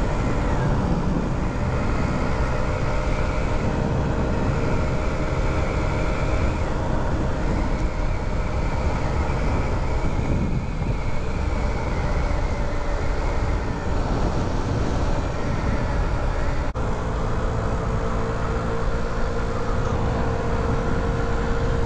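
Honda Ruckus scooter engine running steadily while under way, with wind and road noise rushing underneath.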